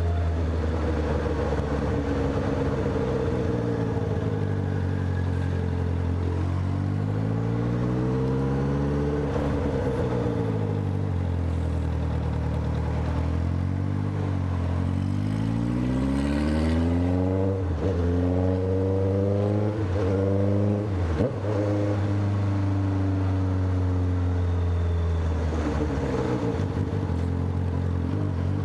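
Honda CB650F's inline-four engine running under way, its pitch climbing and falling several times with the throttle, with a few quick sharp dips and recoveries around the middle.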